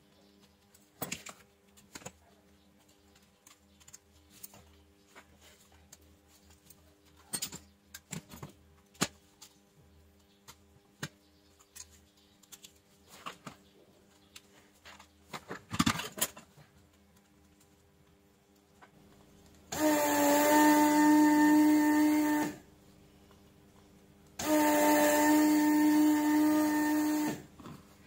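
Light clicks and taps of metal tweezers on a tablet's circuit board and flex-cable connectors. Then two bursts of about three seconds each from a small electric motor running with a steady whine, each starting and stopping sharply; these are the loudest sounds.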